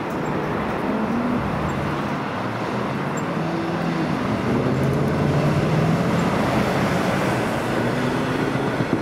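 V/Line Sprinter two-car diesel railcar running past, a steady diesel engine drone with faint shifting tones over the rumble of wheels on the track.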